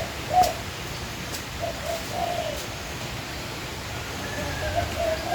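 A dove cooing in the background: short, soft hooting notes in a couple of groups, with a few faint clicks.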